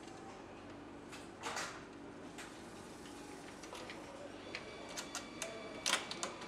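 Engine assembly-line sounds: a steady machinery hum with scattered metallic clicks and clacks as an overhead multi-spindle nutrunner is brought down onto the engine. The clicks come thickest near the end, and a thin, high, steady whine joins in about four and a half seconds in.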